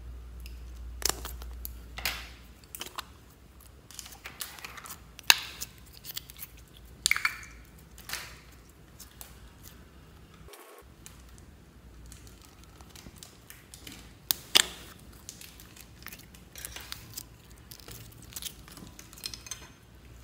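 Slime being squeezed, poked and pulled apart by hand, making a run of sticky clicks and pops, some sharp and loud, others soft.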